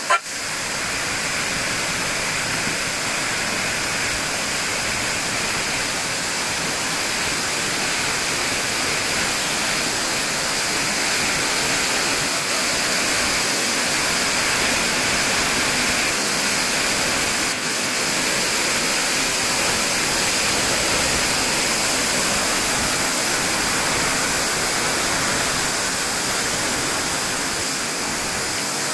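Tall waterfall, a 60 m drop, crashing steadily into its pool: a dense, unbroken rush of falling water.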